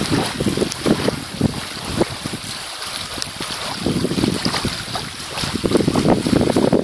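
Wind buffeting the phone's microphone: a low, gusty rumble that comes and goes, strongest in the last couple of seconds.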